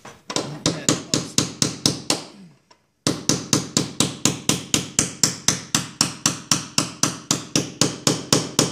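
Hammer tapping a small tool against the metal lock ring of a Chevrolet Silverado fuel pump module, about four to five quick, even taps a second, with a short break about two and a half seconds in. The ring is being driven round to lock it, with the module held down against its seal.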